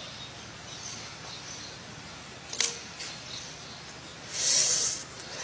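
A single sharp click of a cigarette lighter about two and a half seconds in, then a breathy hiss of smoke being blown out near the end, over a low steady background hiss.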